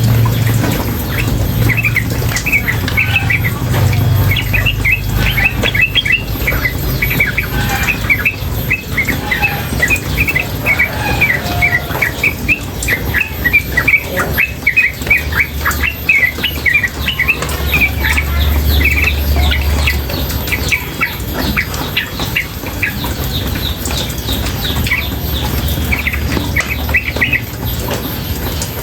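Female yellow-vented bulbul calling in a rapid, unbroken run of short chirps, over a steady sound of running water.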